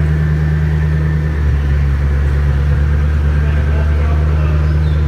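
A hypercar engine idling with a steady, deep exhaust note.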